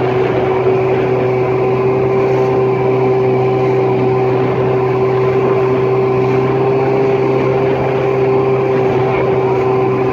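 Motorboat engine running steadily at a constant speed, holding one unchanging pitch.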